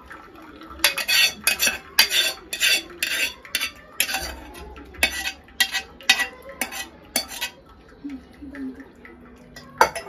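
Steel saucepan and metal utensil clinking and scraping in a quick run of strikes, about two a second, as the last paneer curds are knocked out of the pan into a cloth-lined strainer; the clinks stop for a couple of seconds and start again near the end.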